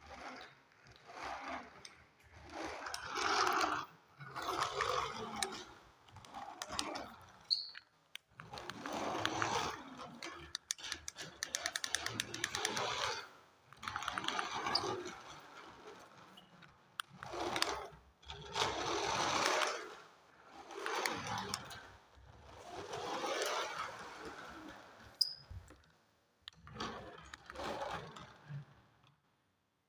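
Toy radio-controlled car's small electric motor and plastic gears running in repeated short bursts as it is driven back and forth, each burst swelling and dying away within a second or two.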